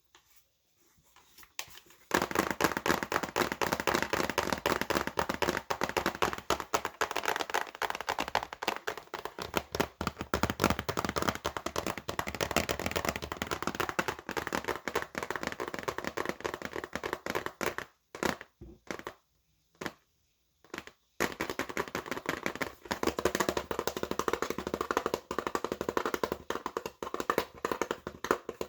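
Computer keyboard typed fast and hard: a dense, rapid run of key clicks starting about two seconds in, breaking off past the middle for about three seconds with only a few stray taps, then starting again.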